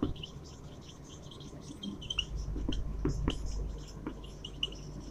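Felt-tip marker writing on a whiteboard: short, irregular squeaks and light taps as each letter is stroked out.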